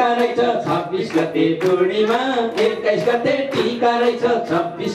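A man singing into a microphone, holding and bending long notes, while the audience claps along in a steady beat.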